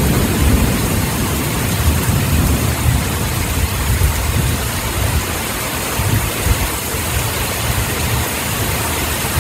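Torrential rain pouring down, an even loud hiss with a steady low rumble underneath that swells and fades.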